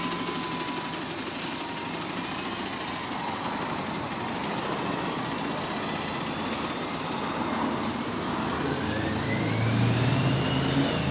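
Turbocharger whine of an Alexander Dennis Enviro400 MMC bus heard from outside: a thin whistle that slides down at first, then rises steadily in pitch as the bus pulls away and turns downward near the end. Under it the diesel engine runs, growing louder as the whine climbs.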